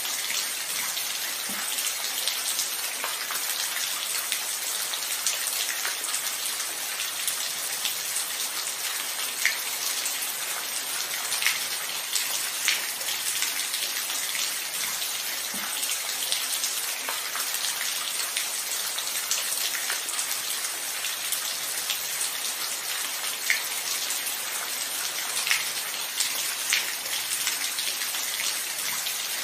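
Steady rain falling, an even hiss with scattered louder drops landing close by.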